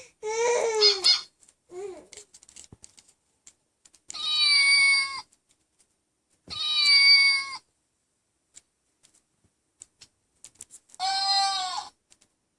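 Electronic animal-sounds picture book playing recorded animal calls through its small speaker as its pictures are pressed: three short calls, each about a second long, a few seconds apart, with faint clicks in between.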